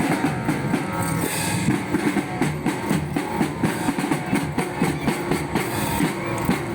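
Loud, fast, steady rhythmic drumming with music in a street carnival parade.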